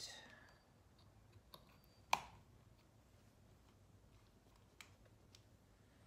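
One sharp plastic click about two seconds in, followed by a few faint small clicks: a USB cable plug snapping into a small USB-C power meter on a power bank.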